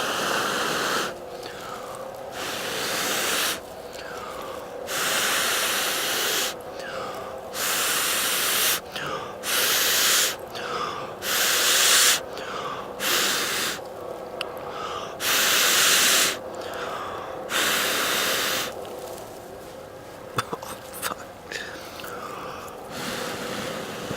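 A person blowing hard into a smouldering tinder bundle lit from a flint-and-steel spark, about nine long breaths with short intakes between them. The blowing stops for a few sharp crackles near the end.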